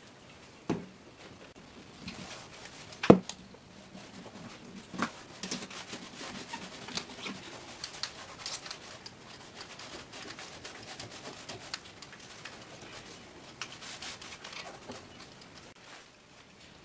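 A spreader/clamp being handled and worked: a few sharp knocks, the loudest about three seconds in, then a long run of light, irregular clicks and ticks that fades out near the end.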